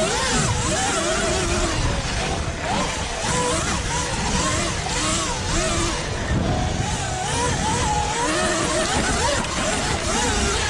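Sur-Ron Light Bee X electric dirt bike ridden hard on its EBMX controller in 15 kW mode 2. The motor's whine rises and falls in pitch with the throttle, over a steady rush of wind and riding noise.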